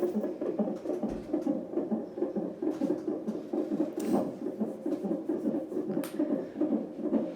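Fetal heartbeat picked up by a CTG monitor's Doppler ultrasound transducer and played through its speaker: a fast, steady rhythm of pulses. Two sharp clicks about four and six seconds in.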